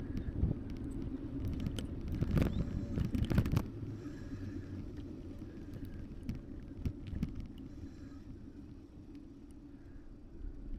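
Wind rumbling on an action camera's built-in microphone while riding an e-bike, mixed with tyre and road noise. It is louder and more ragged for a second or two about two seconds in.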